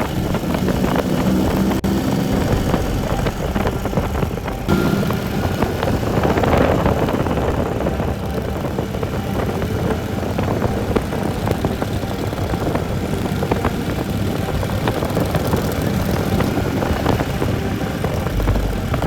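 Motorcycle engine running steadily at road speed under a continuous rush of noise.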